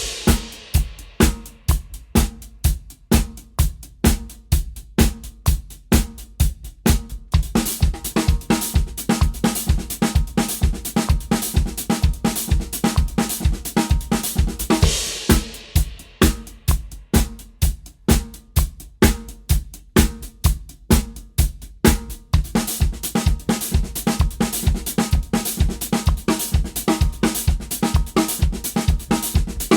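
Drum kit playing a continuous 16th-note groove built from single and inverted paradiddles, the strokes split among hi-hat, snare and bass drum, with a cymbal wash swelling about halfway through and again near the end.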